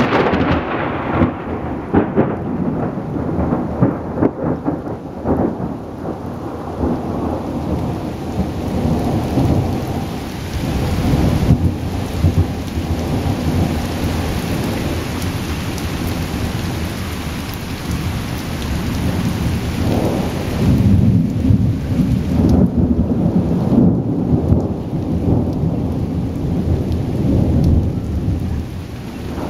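Thunder rolling over steady rain in a thunderstorm. The tail of a loud crack fades over the first couple of seconds, and a fresh long rumble builds about twenty seconds in.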